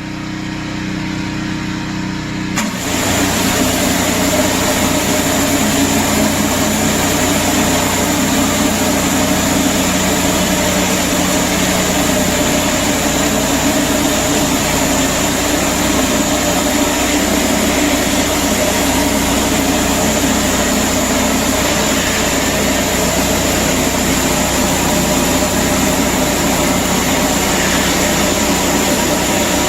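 Pressure washer running steadily. About two and a half seconds in, a loud, even hiss of high-pressure water spray joins it and carries on steadily, as the surface cleaner is put to work.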